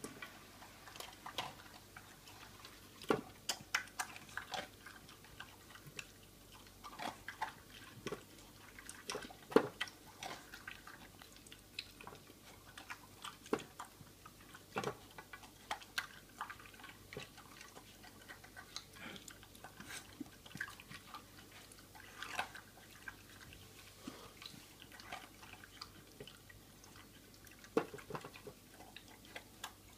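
A beagle eating from a DogIt Go-Slow anti-gulping bowl: irregular sharp clicks and rattles as its muzzle and teeth knock the plastic ridges while it picks out food, mixed with chewing.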